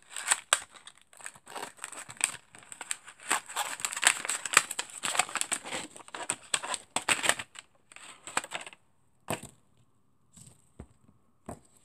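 Fidget spinner packaging being opened and handled by hand: irregular crinkling and rustling of the cardboard box and its packing for about eight seconds, then a few isolated taps.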